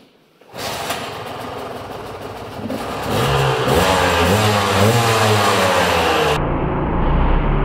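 A two-stroke KTM dirt bike engine starts about half a second in and runs, then revs up in repeated rising sweeps, inside a concrete underground garage.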